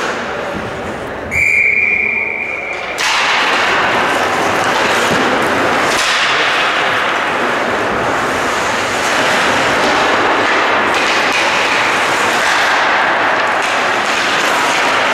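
A referee's whistle blown once, one steady shrill note lasting about a second and a half, followed by a loud steady rushing noise.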